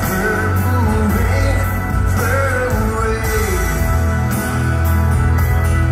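Live rock ballad: a male singer's voice with guitar over a steady bass backing. The sung line trails off about three and a half seconds in, and the instruments carry on.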